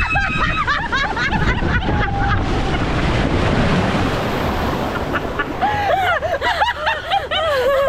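Rushing water and wind buffeting the microphone during a water slide ride, with people's voices calling out near the start and again from about the middle onward.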